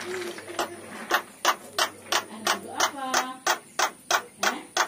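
Javan myna making a run of sharp, evenly spaced clicks, about three a second, broken by a short nasal call about three seconds in: odd sounds in place of the species' natural song.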